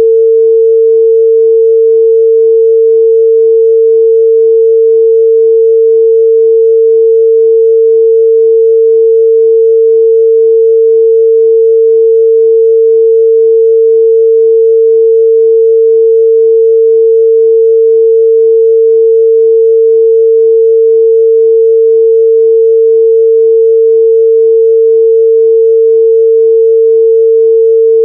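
A steady, loud 451 Hz sine-wave test tone: one pure, unbroken pitch held without change.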